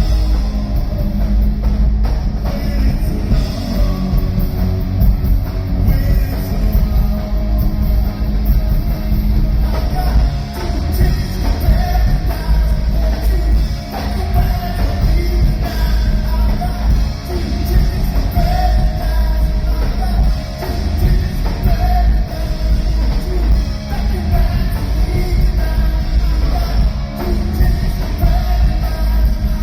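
A rock band playing loudly, with a singer.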